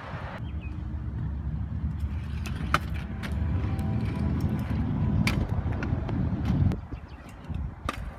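Stunt scooter wheels rolling over cracked asphalt: a steady low rumble that builds a little and stops nearly seven seconds in, with a few sharp clicks along the way.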